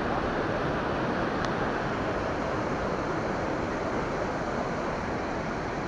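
Water rushing steadily over a low weir of logs and stones into a river pool: the even, unbroken noise of a small cascade.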